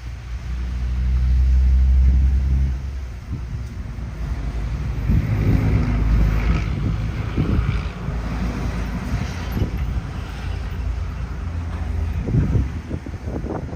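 Diesel engine of heavy earthmoving machinery running hard, loudest about two seconds in, then working on with scattered knocks and clanks.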